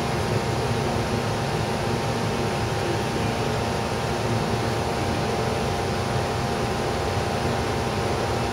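Steady rumbling hiss with a faint steady hum and no distinct events.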